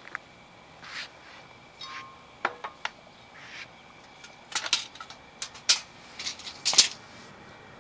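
Scattered light clicks, taps and knocks of hand tools and scrap wood being handled and set down on concrete, with brief rustles; the sharpest knocks come in a cluster in the second half.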